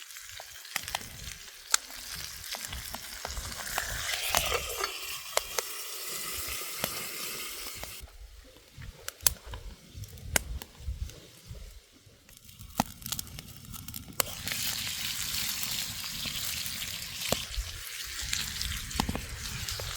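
Food sizzling in a pan over a campfire, with scattered sharp pops and crackles. The sizzle drops away for several seconds in the middle and then comes back.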